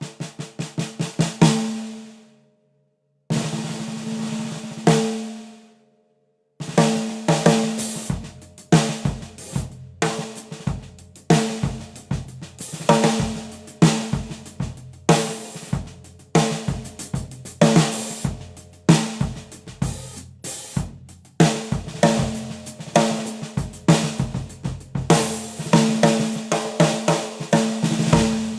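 Drum kit played: a quick fill, a brief pause, a sustained roll-like passage, then a steady groove of snare drum, bass drum, hi-hat and cymbals, with the drums ringing after each hit.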